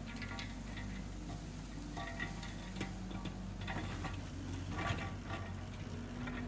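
Tractor engine running steadily while pulling a power rake across rough ground, with irregular clicks and rattles from the rake working the soil.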